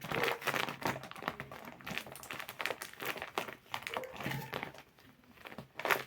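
Plastic packaging crinkling and rustling in the hands as squishy toys are handled, with a brief lull about five seconds in.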